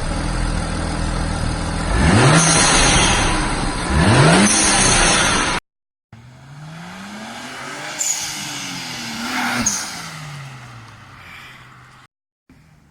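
BMW 335i's twin-turbo N54 straight-six, fitted with an HKS blow-off valve, in two short clips. In the first the engine is blipped twice, rising sharply about two seconds apart. In the second the engine pitch climbs and then falls away, with two sharp high bursts along the way.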